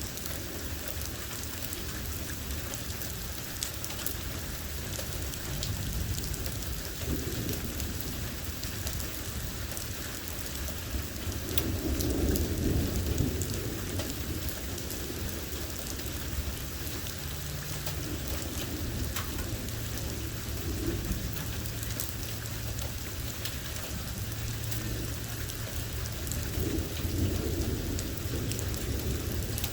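Steady heavy rain with scattered sharp drop impacts, and low rolls of thunder about twelve seconds in and again near the end.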